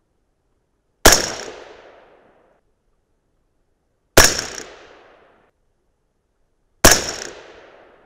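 Suppressed AR-15-style rifle in .223 Remington firing three shots about three seconds apart. Each shot is a sharp crack followed by an echo that fades over about a second.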